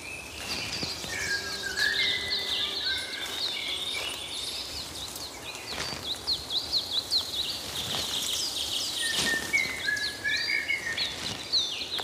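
Several songbirds singing together in woodland: quick high chirps all through, with clearer whistled phrases about one to three seconds in and again near the end, over a faint outdoor hiss and a few soft knocks.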